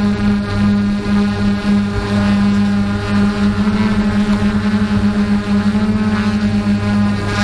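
Engine running steadily at a constant pitch, with a rapid pulsing beat in its sound from a few seconds in.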